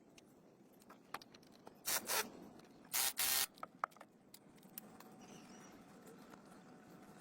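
Short hissing bursts like a spray: a quick double burst about two seconds in and a longer one of about half a second just after three seconds, among light scattered clicks and taps.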